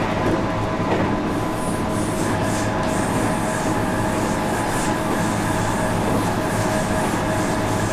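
JR West 221 series electric train running along the line, heard from inside at the front: steady rail and running noise with a constant hum.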